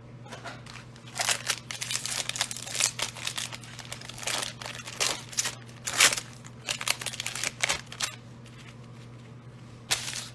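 A Donruss football card fat pack's wrapper being torn open and crinkled by gloved hands as the stack of cards is pulled out. The crinkling and tearing run from about a second in to about 8 seconds, loudest around 6 seconds, with one more short crinkle near the end.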